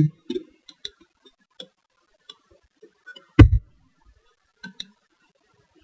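Scattered single clicks of a computer mouse and keyboard, with one louder thump about three and a half seconds in.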